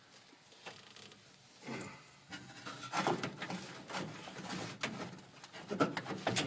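Handling noise from a person crawling under a car's dashboard: irregular rustling and rubbing with a few light knocks, busier from about two seconds in.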